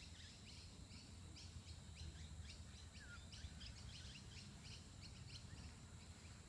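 Faint birdsong: a rapid run of short, high chirps, several a second, over a low steady background rumble.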